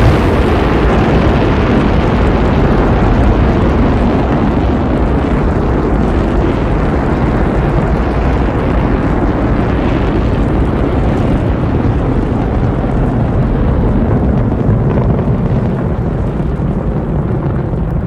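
Space Shuttle solid rocket boosters and main engines firing through liftoff and ascent: a loud, continuous, crackling rumble. Its upper range slowly fades in the second half as the vehicle climbs away.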